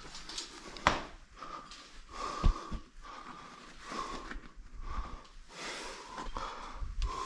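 A climber breathing hard with effort, in repeated audible breaths. There are a couple of sharp knocks, about one second and two and a half seconds in.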